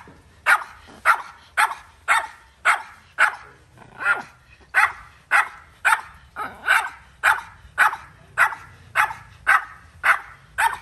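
A dog barking over and over in a steady, even rhythm, about two sharp barks a second without a break.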